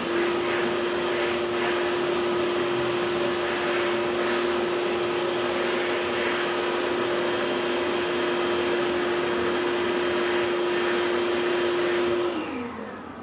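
A narrow-gauge steam locomotive blowing off steam: a loud, steady hiss with a single tone under it, from steam released to relieve boiler pressure. About twelve seconds in, the tone drops in pitch and the hiss dies away as the release shuts off.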